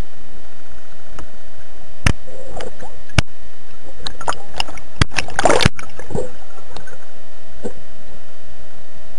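Underwater sound: a steady hiss with scattered sharp clicks, and a short bubbling burst about five and a half seconds in.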